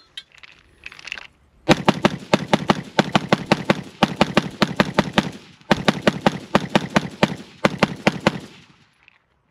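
Diamondback DB15 AR-15 rifle in 5.56 fired in rapid strings, about six shots a second, starting about two seconds in and broken by two short pauses. A few faint clicks come before the first shot.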